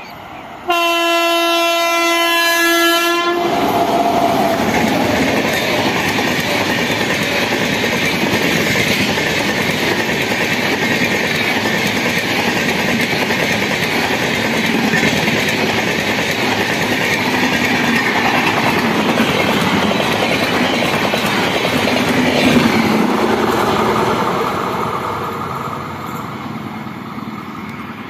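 An Indian express train's horn gives one long blast about a second in. The train then runs through at high speed, about 130 km/h, its LHB coaches rushing past for some twenty seconds before the sound fades near the end.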